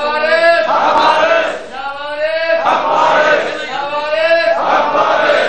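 A crowd of men chanting together in unison, the same long phrase rising and falling and repeating about every one and a half to two seconds.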